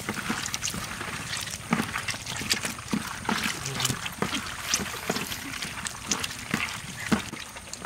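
Irregular clicking and clattering with water sloshing and trickling.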